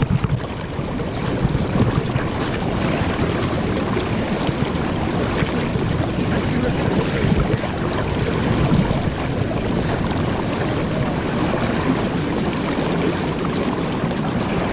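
Steady rush of flowing river water, mixed with wind noise on the microphone.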